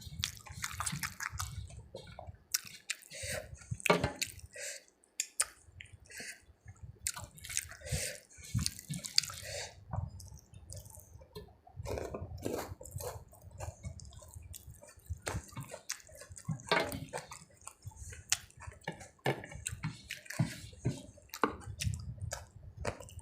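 Close-miked eating sounds: wet chewing, lip smacks and squelches of a mouthful of rice and curry, in irregular short clicks.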